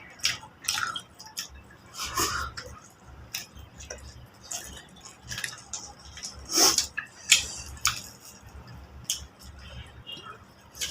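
Close-up eating sounds: wet chewing and smacking as chicken in curry is eaten, with scattered clicks and clinks of plates.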